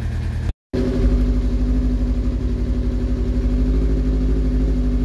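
Sport motorcycle engine running at a steady idle. The sound cuts out for a moment about half a second in, then comes back a little louder.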